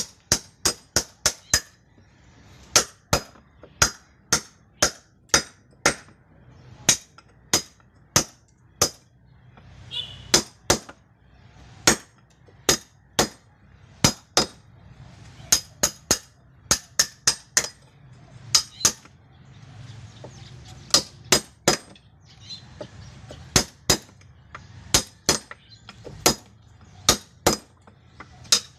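Hammer or mallet blows on a chisel, cutting a hole in wood. The blows are irregular, often two to four in quick succession, and each one ends in a short metallic ring.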